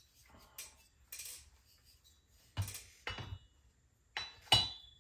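Light metal clinks and taps as a chainsaw cylinder is handled and fitted down over the piston onto the saw: a few faint ticks, then sharper clinks with a brief high ring in the second half, the loudest about four and a half seconds in.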